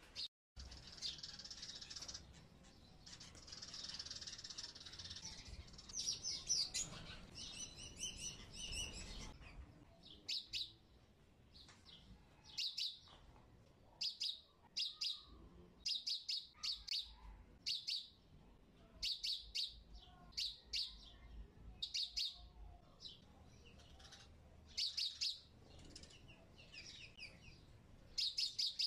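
A small bird chirping over and over, short high notes in quick clusters, with a faint hiss under the first several seconds.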